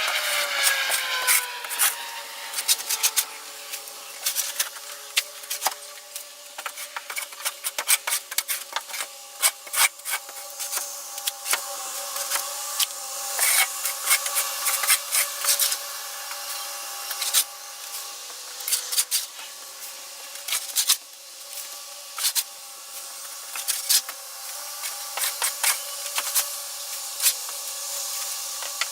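Scraping and rustling of soiled chicken bedding and droppings being shoveled off a coop floor: many quick, irregular scrapes and clicks, over a faint steady whine.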